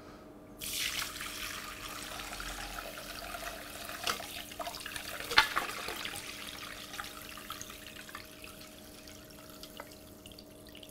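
Fermented pepper-and-beet brine pouring from a large glass jar through a mesh strainer into a glass bowl, splashing steadily, with two sharper clicks partway through. The pour eases off near the end.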